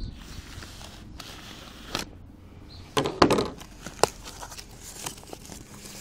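Plastic packaging being torn open and crinkled by hand, a few short sharp rustles with the loudest about three seconds in.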